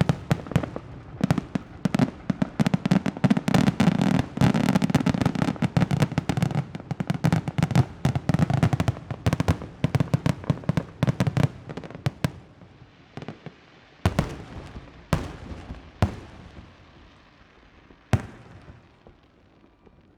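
Aerial fireworks finale: a dense barrage of rapid bangs and crackling for about twelve seconds, thinning out to a few separate booms and then fading.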